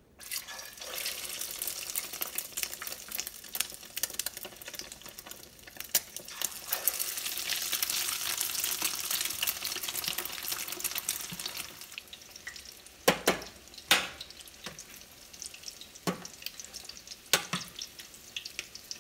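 Flour-and-egg-dredged chicken pieces frying in hot oil in a stainless steel skillet: a sizzle that starts suddenly, is loudest in the middle and then dies down. Near the end a spoon knocks sharply against the pan a few times.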